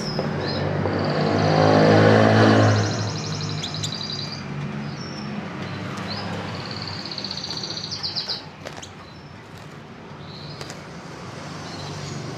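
Two rapid, high-pitched bird trills, the first about half a second in and the second about six seconds in: canary song. A vehicle engine swells and fades under the first trill.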